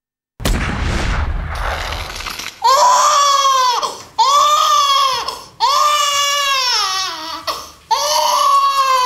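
Newborn baby crying: four long wailing cries, each falling in pitch at its end, after about two seconds of rough noise.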